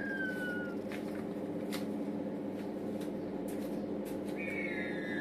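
Rhea chicks calling with long, falling whistles, one fading out just after the start and another beginning near the end, over a steady low mechanical hum, with a few light taps in between.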